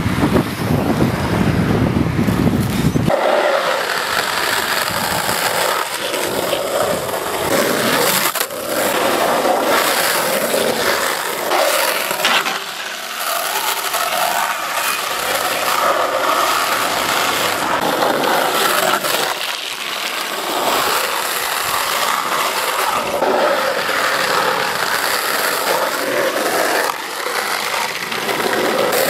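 Longboard wheels rolling and sliding on asphalt: a continuous scraping hiss that swells and fades with each slide, with scattered clicks and knocks from the board. A heavy low rumble for the first three seconds cuts off suddenly.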